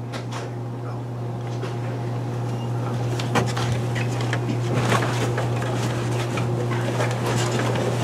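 Shuffling footsteps, clothing rustle and scattered small knocks as several people walk in and sit down on fabric couches, over a steady low hum.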